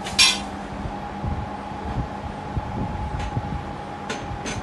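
Steel square-pipe folding table frame clanking as it is handled and unfolded: one sharp metallic clank about a quarter second in, then a couple of lighter clicks near the end, over a steady hum.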